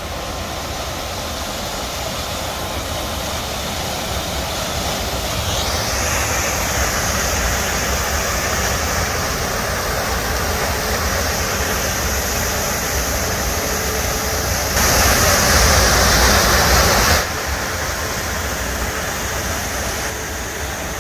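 Waterfall's steady rush of falling water. It grows a little louder about six seconds in, then jumps louder for about two seconds before dropping back.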